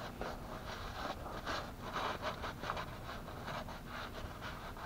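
A rag and gloved hand rubbing around a freshly tightened oil-pan drain plug: an irregular run of short rubbing and scraping sounds.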